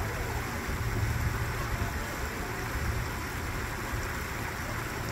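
Steady outdoor background noise: a low, unsteady rumble with an even hiss over it, and no goose calls.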